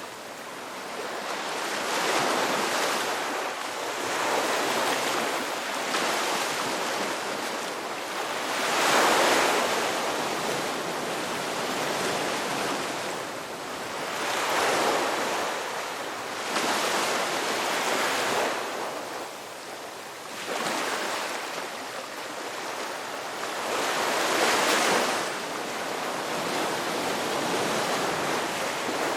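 Sea waves breaking and washing on the shore in repeated swells, each rising and falling over two or three seconds, with some wind on the microphone.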